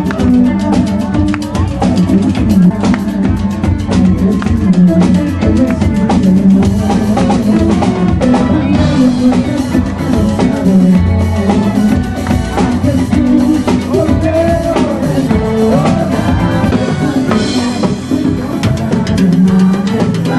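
Live band music with a drum kit and percussion keeping a steady beat under sustained instrumental parts.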